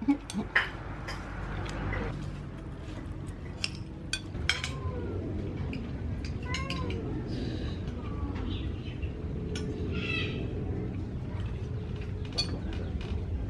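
A cat meowing several times in short calls, over small clinks of spoons on plates and a steady low background rumble.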